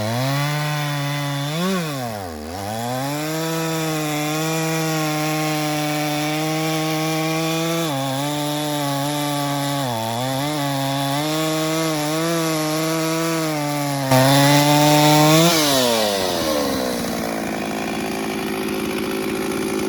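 Stihl 044 two-stroke chainsaw cutting through a log, its engine speed dipping sharply several times as it bogs down in the cut. Near the end it revs free, drops to idle and stops.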